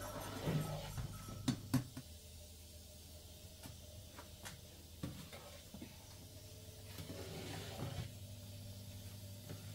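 A few light clinks and knocks of a metal spoon against a steel cooking pot during the first two seconds, then quiet room tone with a low steady hum and a few scattered taps.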